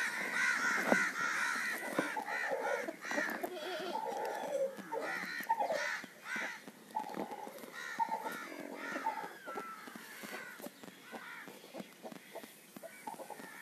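Birds calling: many short, overlapping calls that thin out and grow quieter over the last few seconds.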